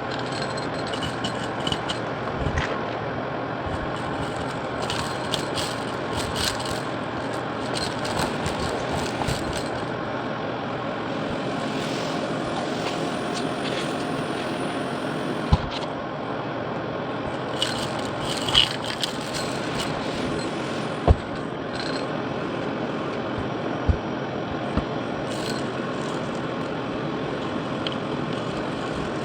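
Shark vacuum cleaner running steadily, with gritty crackling and a few sharp clicks as grit and small hard debris are sucked up.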